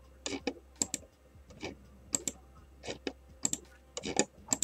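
Computer mouse clicking repeatedly, short sharp clicks mostly in close pairs about every half second, as a web page's randomize button is pressed again and again.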